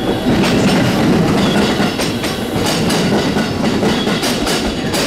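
JR West 207 series electric train arriving at a station platform, its cars rolling past with a steady rumble and the wheels clacking over rail joints, the clacks coming more often from about halfway through.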